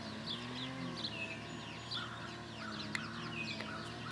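Birds chirping outdoors: many short, quick downward chirps, several a second, over a faint low steady hum.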